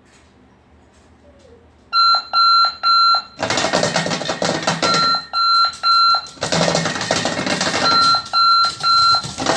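Sonic Bomb alarm clock going off about two seconds in: groups of three high beeps alternate with the bed shaker's loud buzzing rattle against a tin pot, the cycle repeating about every three seconds.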